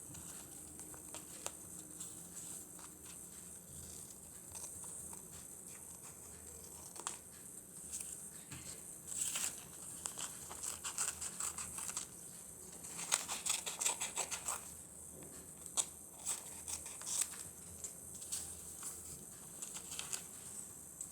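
Paper being handled and crinkled during paper crafting, with scattered sharp clicks and two busier spells of rustling, about nine and thirteen seconds in, over a steady faint hiss.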